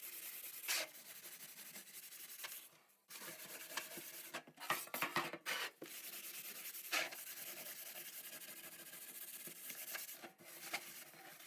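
Hand scrubbing of a toaster oven part with a brush or scourer: a steady scratchy back-and-forth rubbing, broken by short pauses about three and ten seconds in, with a few sharper knocks.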